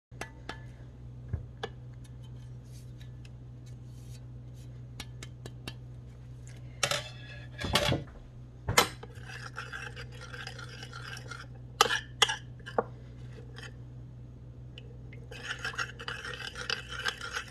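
Metal fork and spoon stirring a flaxseed-and-water mix in a china bowl, scraping against the bowl, with a few sharp clinks of metal on china about a third of the way in and again past the middle. A steady low hum runs underneath.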